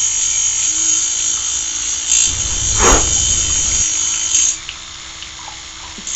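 A steady high-pitched drill-like whirring, made as the sound effect of a noisy factory machine, with a thud about three seconds in; the whirring stops about two thirds of the way through and comes back briefly at the end.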